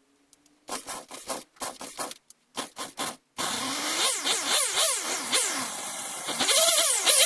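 Partner 510 two-stroke chainsaw being pull-started: several short pulls of the starter, then the engine catches about three seconds in and runs with the throttle blipped up and down repeatedly, faster towards the end. It now starts after a new spark plug and a refitted carburettor gasket.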